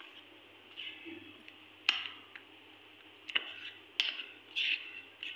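Steel spoon stirring a thick biscuit paste in a steel bowl: short scraping rasps against the bowl, with a few sharp clinks of spoon on metal.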